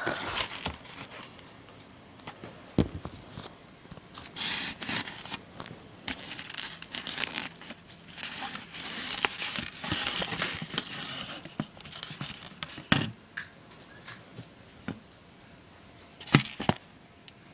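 Close handling noise: a disposable plate with a large brownie on it rustling and scraping as it is held and moved about. Three sharp knocks stand out, about 3, 13 and 16 seconds in.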